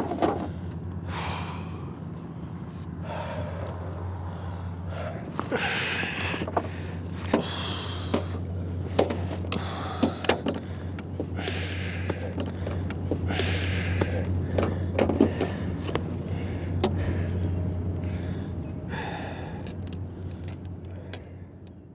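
Rustling and small knocks as a rope is tied around a padded vaulting-pole bag on a car roof rack, with a man breathing hard, over a steady low hum. It fades out near the end.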